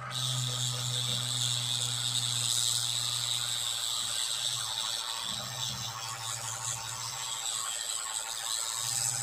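Small electric drill grinding into a glued eMMC chip, a steady high grinding over a low motor hum that sets in suddenly at the start. The bit is pressed down while cutting through the chip's first layer.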